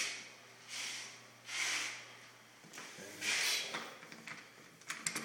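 Soft breathing close to the microphone, several breaths about a second apart, over a low steady hum that stops partway through. A quick run of small clicks comes near the end.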